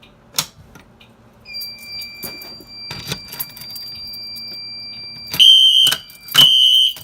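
Fire alarm test: a click about half a second in, then a steady high electronic beep from about a second and a half. Near the end, Wheelock fire alarm horns start sounding together in sync, two loud half-second blasts about a second apart.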